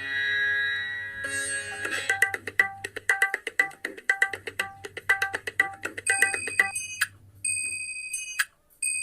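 Instrumental music: a held pitched tone, then a quick run of short plucked or struck notes from about two seconds in, and a few high ringing notes near the end.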